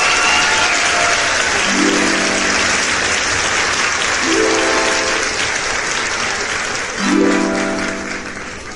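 Background music, a short plucked phrase repeating about every two and a half seconds, over a loud steady hiss that fades near the end.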